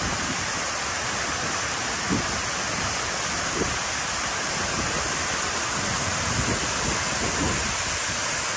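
Water sheeting down the tall grooved walls of the Hines Waterwall fountain: a steady, even rush of falling water.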